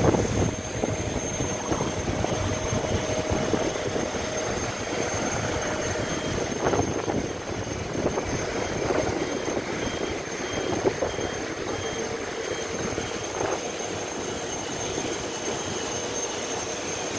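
Steady rushing hum with a constant high whine from a parked Airbus A350-900 airliner and its gate equipment, with a few faint knocks.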